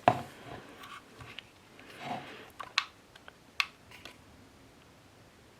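A few small sharp clicks and taps from handling the soap shaver as its replacement blade is levelled and screwed down, spread over the first two-thirds.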